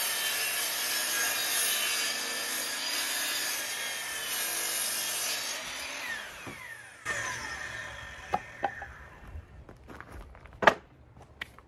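Sliding compound miter saw running and crosscutting a 2x10 board, then the blade spinning down with a falling whine about six seconds in. After that come a few knocks and clicks of the board and saw being handled, with one sharp knock near the end.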